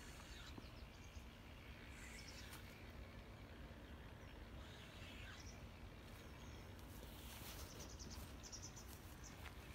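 Near silence: faint riverside ambience with a low rumble and a few faint, short high chirps scattered through it.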